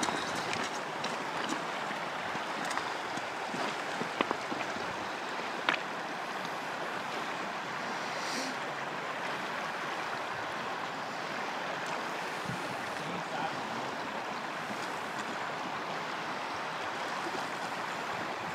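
Steady rush of flowing river water, with a couple of faint clicks about four and six seconds in.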